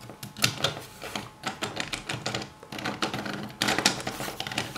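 3D-printed plastic parts clicking and rattling as a toothed plastic wheel is seated in its base and turned by hand. A rapid, uneven run of small ticks comes from the gear teeth, with one louder click about three and a half seconds in.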